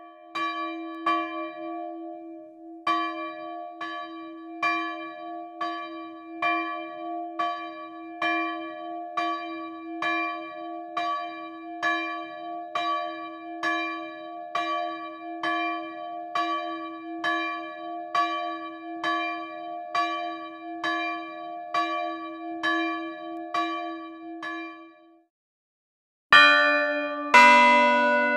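A small bronze wall bell, rung by its pull rope, striking steadily about once a second before it stops. After a short pause come two louder, deeper strokes about a second apart from the church's two bronze tower bells.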